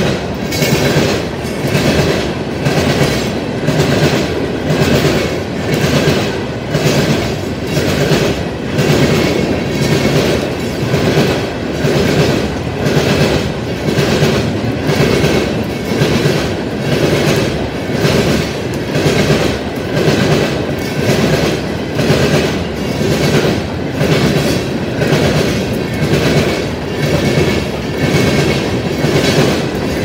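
CSX freight train's hopper cars rolling past, their wheels clacking over the rails in a steady repeating rhythm of about one beat a second.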